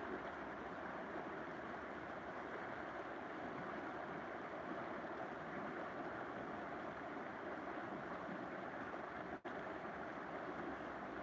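Steady rushing noise, even and without a clear pitch, that drops out for a split second about nine seconds in.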